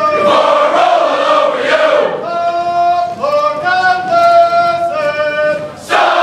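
A large group of soldiers singing together in unison, holding long sustained notes that step from one pitch to the next. Near the end a loud burst of many voices breaks in.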